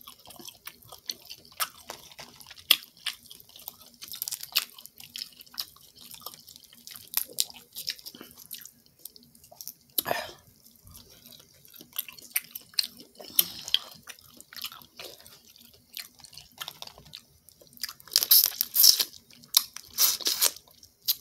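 Close-up eating of a buttery seafood boil: wet chewing and smacking, with small crackles of crawfish shells being peeled by hand. Louder wet sucking and smacking near the end, over a faint steady hum.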